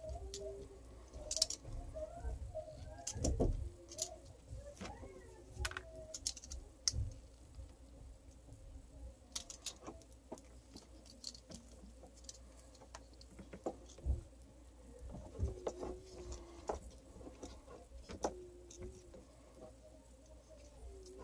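Scattered small clicks and rustles of hands twisting plastic wire nuts onto the spliced cord wires inside an opened hammer drill's housing.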